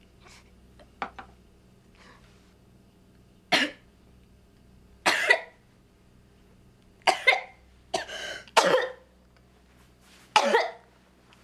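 A woman coughing in short, harsh bursts, one every second or two, with a faint first cough and loud fits from about three and a half seconds in that come closer together toward the end.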